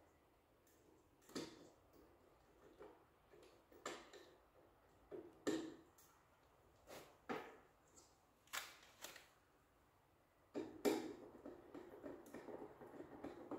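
Faint scattered clicks and knocks of handling, a dozen or so spread out, with denser continuous rustling and clatter in the last three seconds.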